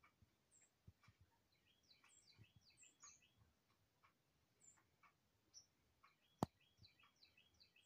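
Faint chirping of small birds, many short high calls scattered throughout, with a single sharp click near the end.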